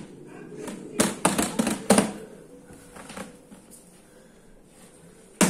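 A toddler's hands slapping the bottom of an upturned plastic laundry basket like a drum: a quick run of about five hollow slaps about a second in, a single faint one a little later, then a louder bang near the end as the basket is handled.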